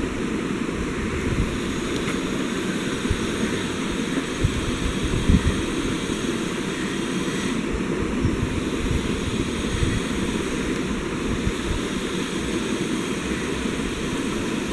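Steady rushing background noise with a low rumble and no distinct events.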